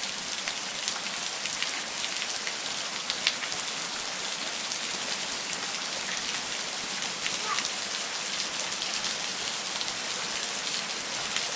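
Steady rain falling, a continuous hiss with the patter of individual drops hitting close by.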